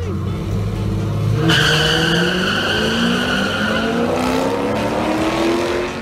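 Drag-racing cars launching off the line: the engines rev and pull away, their pitch rising steadily as they accelerate. A high tyre squeal comes in at the launch, about a second and a half in, and fades after a couple of seconds.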